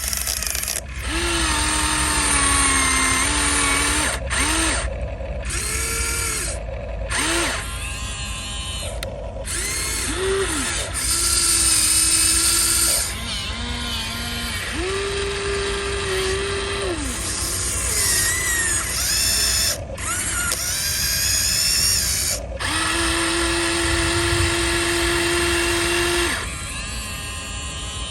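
Electric motors and gearboxes of Huina radio-controlled construction models, an excavator and a dump truck, whining as their functions start and stop. The runs last from under a second to a few seconds, some gliding up or down in pitch as they start or stop, with a longer steady whine near the end.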